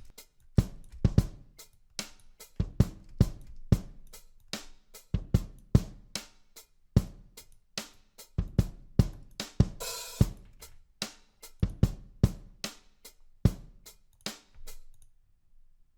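Programmed drum-kit beat playing back: kick, snare and hi-hat hits in a steady groove, with a cymbal crash about ten seconds in. The beat stops about a second before the end.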